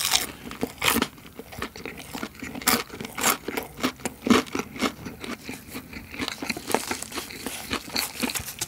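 Close-miked chewing of crispy seasoned fried chicken: many irregular crunches as the batter breaks between the teeth.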